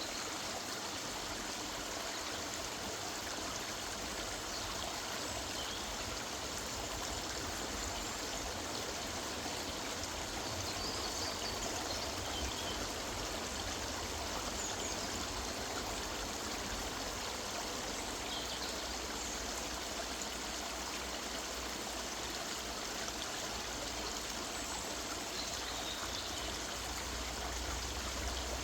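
A river running steadily over stones, a continuous rushing and trickling. Faint short bird chirps come through now and then above the water.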